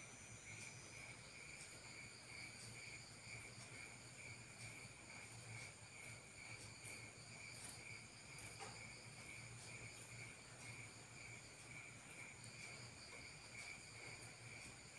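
Faint, steady chirping of night insects, with a low hum underneath.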